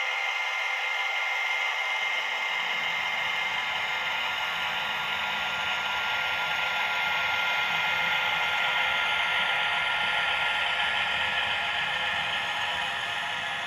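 PIKO Class 247 diesel Vectron model locomotive's sound decoder playing diesel running noise, a steady hiss with a high steady whine, as the model train passes; a low rolling rumble from the train on the track sets in a couple of seconds in.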